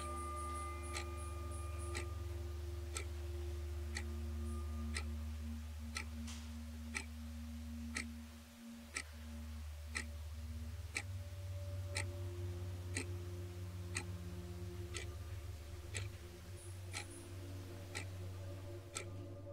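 A clock ticking steadily, about once a second, over a low steady hum.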